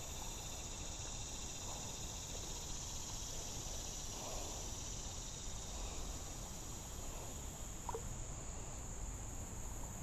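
Steady high-pitched insect chorus with a faint low rumble beneath, and one brief short sound about eight seconds in.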